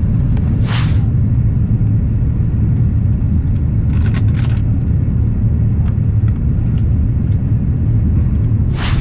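Airbus airliner cabin noise during descent: a loud, steady low rumble of engines and airflow, with a few brief sharp noises about a second in, around four seconds in and near the end.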